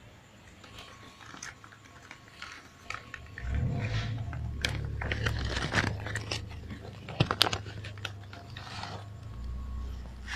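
Thin plastic bag crinkling and rustling in irregular crackles as a cat moves about in it. A low rumble joins in about three and a half seconds in and fades a few seconds later.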